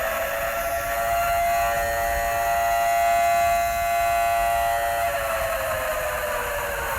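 Emergency warning siren wailing: a steady held tone with several pitches stacked together, which starts to fall away about five seconds in, over a steady hiss.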